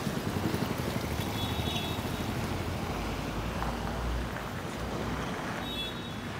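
Wind buffeting the phone's microphone as a steady rumbling noise, with faint road traffic behind it.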